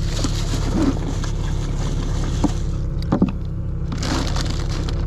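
Knocks and plastic rustling as fish and a can are handled in a foam cooler, with a few sharp taps about a second in, then at two and three seconds. A steady low rumble runs underneath.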